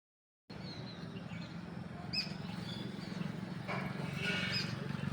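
Birds chirping outdoors in short, high calls, over a steady low hum.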